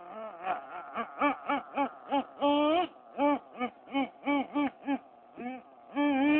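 Small 3.5 cc nitro engine of an HPI Trophy 3.5 RC buggy being blipped: quick revs about three or four a second, rising and falling in pitch, with a longer held rev near the middle and another near the end, dropping back to a faint idle between them.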